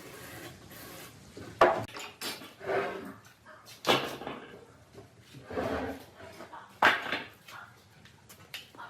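Three sharp knocks about two and a half seconds apart, with softer scraping and clatter between them: wood and tools being handled.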